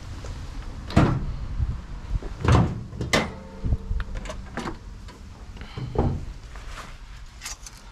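Car body panels being opened and shut: four heavy clunks, about a second in, twice close together around the middle, and once more near the end, with lighter clicks and rattles between them.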